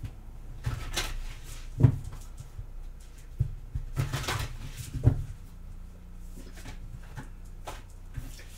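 A deck of tarot cards shuffled by hand: irregular soft swishes and taps of the cards, with a sharper click about two seconds in, over a faint steady low hum.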